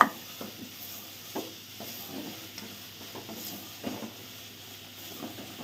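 Wooden spatula stirring and scraping minced meat with green capsicum around a steel pot, irregular scrapes over a light sizzle as the mince is fried down in oil.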